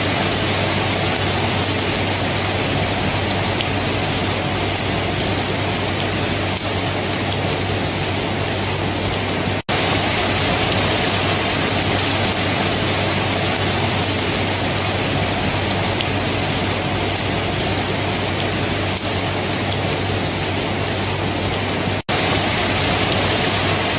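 Steady, heavy rain, an even hiss with a low steady hum beneath it. The sound drops out for an instant twice.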